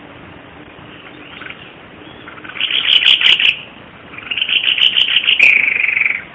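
White-bibbed babbler (Stachyris thoracica) singing: two loud bursts of rapid chattering song, the first about three seconds in and under a second long, the second starting about a second later and lasting nearly two seconds.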